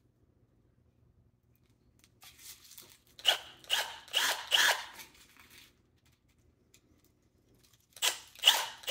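20V cordless drill with a 5/32-inch bit boring a hole into a PVC end cap, run in short bursts to start the hole. The bursts come about two seconds in, pause, and start again near the end.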